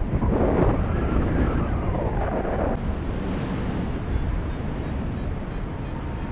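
Wind buffeting the microphone of a paraglider pilot's camera in flight: a steady low rushing of airflow, with some wavering higher tones in the first half.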